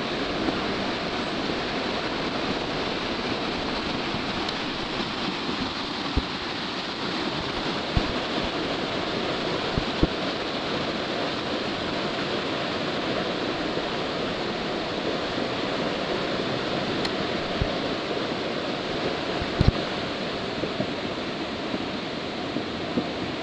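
Steady rush of the Whetstone Brook in flood, swollen far over its banks, with a few brief thumps about 8, 10 and 20 seconds in.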